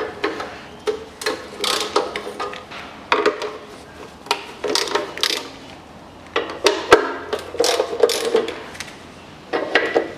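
Socket ratchet clicking in short, irregular spurts while loosening the bolts of an engine's exhaust-manifold heat shield, with a few metallic clinks of the tool against the shield.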